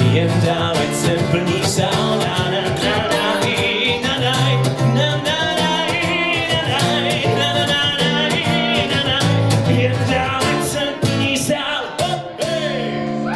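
Live acoustic pop song: a man sings a wordless 'na na na' refrain over a strummed acoustic guitar.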